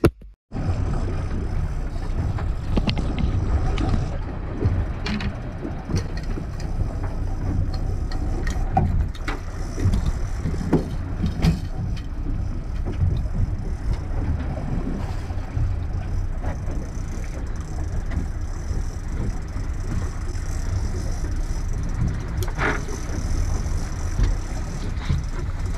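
Outboard engine running with the boat under way, mixed with wind buffeting the microphone in a steady, uneven rumble. A few sharp clicks or knocks come through it.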